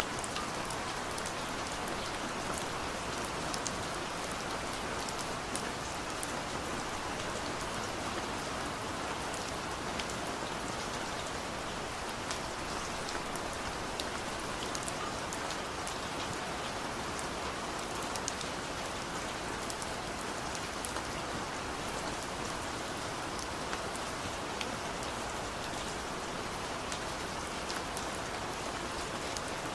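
Steady rain falling, a continuous hiss with many scattered sharper drop hits.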